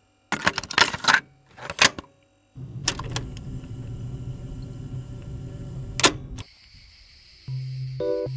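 Typewriter keys clacking, a quick run of sharp strikes for about two seconds as a title is typed out. A steady low rumble follows for a few seconds with one sharp click near its end, and music starts just before the end.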